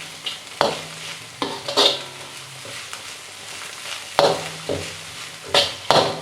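Spatula scraping and knocking against a frying pan in irregular strokes as a stir-fry is tossed, over a steady sizzle of frying.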